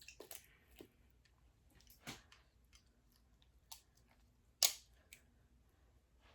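Close-miked eating of a seafood boil: quiet chewing with scattered sharp clicks, and one louder snap a little past halfway.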